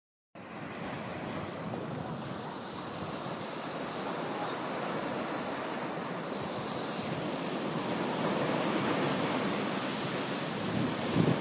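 Sea waves washing onto a beach: a steady rushing that slowly swells, with some wind on the microphone.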